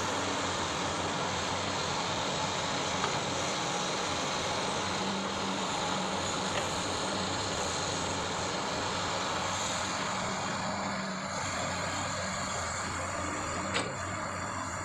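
Hydraulic excavator's diesel engine running steadily, with a short click near the end.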